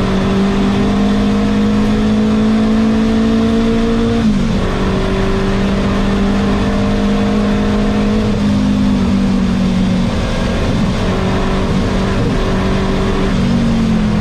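Renault 5 Turbo 2's mid-mounted turbocharged four-cylinder engine under hard driving, heard from inside the cockpit. Its pitch climbs slowly, drops sharply about four seconds in, then steps up again and falls away near the end as the car slows.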